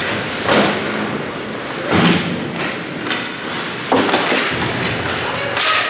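Ice hockey play echoing in an indoor rink: four sharp knocks, about one every one and a half to two seconds, from puck, sticks and players hitting the boards and glass, over a steady scrape of skates on ice.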